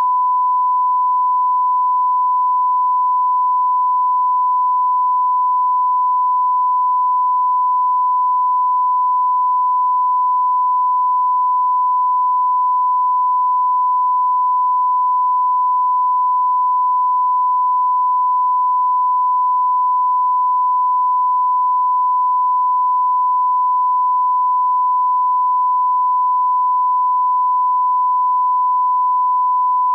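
A steady, unbroken test tone at a single pure pitch, the placeholder tone filling a broadcast commercial break.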